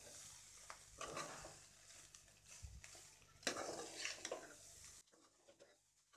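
Metal ladle scraping and tossing fried rice around a metal kadai, a few irregular scrapes and clanks over a soft sizzle, the loudest about three and a half seconds in; the stirring stops about five seconds in.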